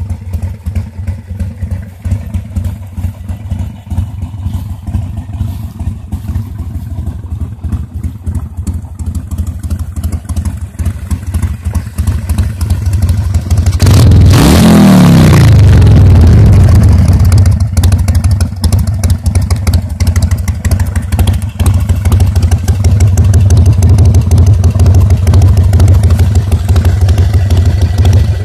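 Harley-Davidson Sportster 1200 Seventy-Two's air-cooled V-twin with a Screamin' Eagle kit, idling. About 14 seconds in the throttle is blipped once, the revs shooting up and falling back over two or three seconds, and then it idles on, louder.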